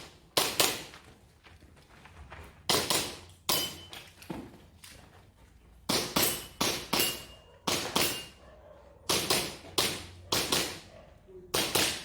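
Airsoft pistol (IPSC Action Air, Standard division) fired in a rapid string of about twenty shots, mostly double taps, each a sharp crack, some followed by a brief metallic ring.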